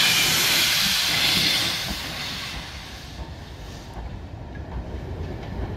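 BR Standard Class 4 2-6-4T steam tank locomotive 80080 hissing steam as it moves slowly along the platform road; the hiss fades out after about two seconds, leaving a low rumble of the engine rolling on the rails.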